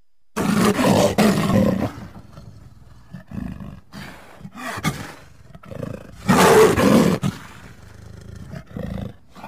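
Leopard calling: a series of hoarse calls of uneven loudness, the loudest at the start and again about six seconds in, with softer ones between and a faint last one near the end.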